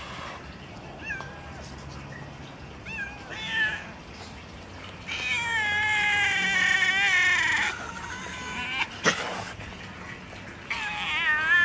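Cats meowing: a few short meows, then a long wavering meow about five seconds in, and another wavering meow near the end. A single sharp click comes about nine seconds in.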